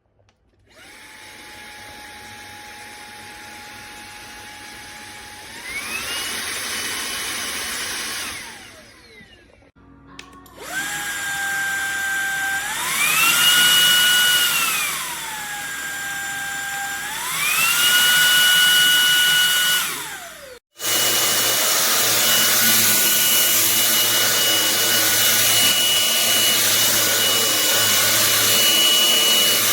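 MONSGA MV3 cordless stick vacuum's motor switched on and off several times, with a whining hum that steps up to a higher pitch as it is switched to a higher power setting and later drops back. It stops twice, and near the end it runs steady at the high setting.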